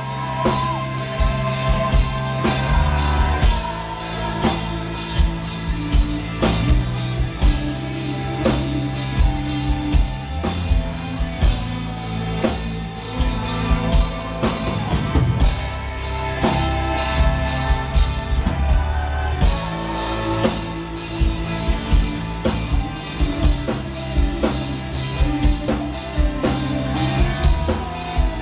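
Live metal band playing, recorded from the crowd: a steady drum-kit beat over sustained low bass and guitar.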